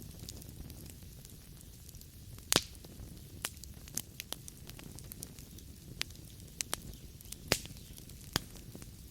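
Wood fire burning in a fireplace, crackling: sharp snaps and pops of the burning logs come at irregular intervals over a low steady rumble of the flames. The loudest pops come about two and a half seconds in and again about seven and a half seconds in.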